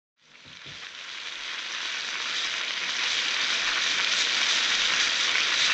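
Rabbit legs frying in butter in a skillet, sizzling with fine crackles, fading in over the first couple of seconds and then holding steady.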